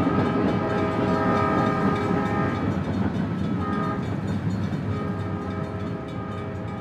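A train horn sounding a held chord of several notes over a low rumble. It shifts slightly about three seconds in and slowly fades.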